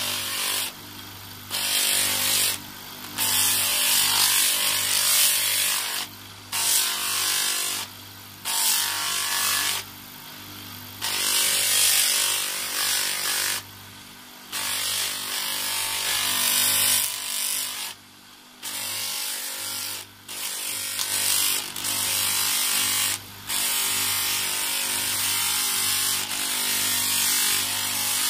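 Electric motor spinning a fine (600-grit) sanding disc on a spindle extension while brass door hardware is pressed against it: a steady motor hum under a loud abrasive hiss that breaks off for a moment every few seconds as the piece is lifted and repositioned. This is the sanding stage that strips the oxidised layer from the brass before polishing.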